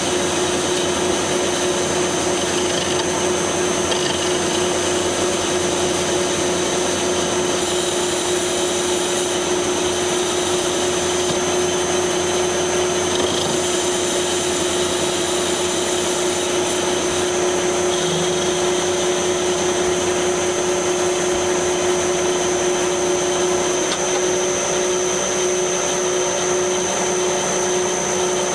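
Metal lathe running steadily while a tool takes a cut on a cast iron workpiece: an even machine hum with a constant high whine.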